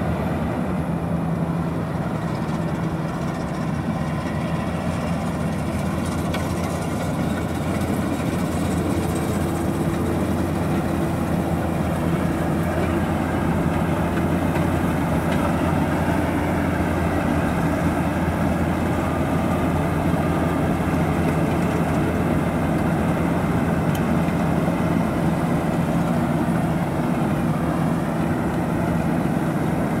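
An 88 hp GAM Ruilong tracked combine harvester running steadily under load while harvesting: a constant low engine drone mixed with the hum of the threshing machinery, with no change in pace.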